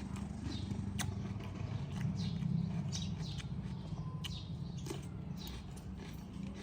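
Small birds chirping repeatedly, each call a short note falling in pitch, over a steady low hum. There is a sharp click about a second in.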